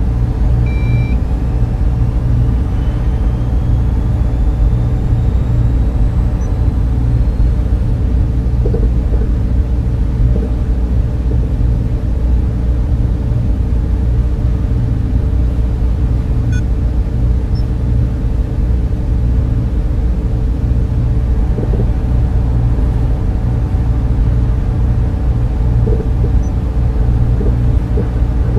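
Steady, deep rumbling drone of a sci-fi ambience, with a faint high tone gliding slowly upward in the first several seconds and a few faint short electronic beeps scattered through it.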